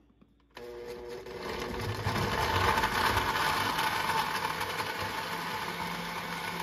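Oster countertop blender motor starting about half a second in and running steadily, chopping chunks of vegetables and fruit in water into a green juice. It grows louder about two seconds in.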